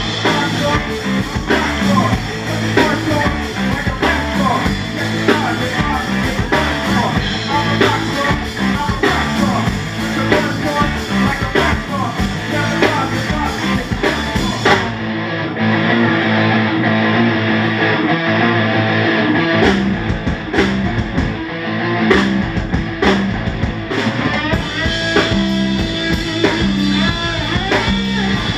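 A live rock band of electric guitar, electric bass and drum kit playing. About halfway through, the cymbals and the deepest bass drop out for about five seconds while guitar and bass carry on, then the full kit comes back in.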